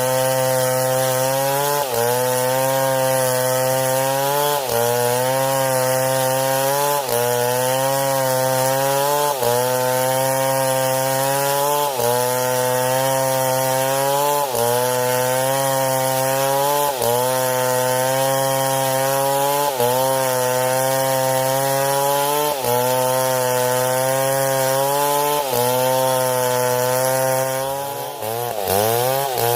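STIHL MS 070 two-stroke chainsaw running at high revs while cutting wood, its pitch sagging and recovering every two to three seconds. Near the end the engine drops off briefly and revs back up.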